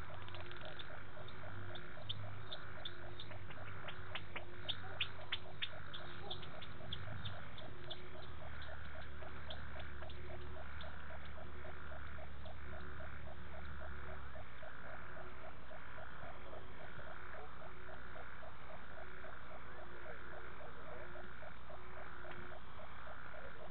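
Night chorus of frogs calling at a waterhole: several overlapping rhythmic calls, one a fast pulsing at about five beats a second, another a slower pulse about once a second. A run of sharp clicks sounds in the first few seconds.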